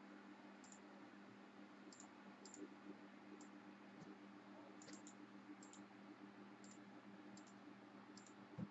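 Near silence, with about a dozen faint, irregular clicks from a computer mouse and keyboard over a faint steady hum.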